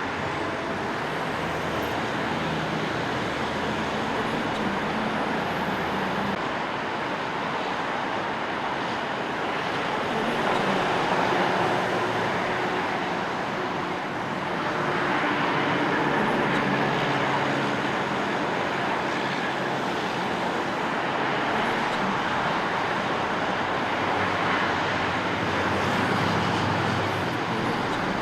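Busy city street traffic: a steady wash of passing cars, buses and trucks with engines humming, swelling a little midway through.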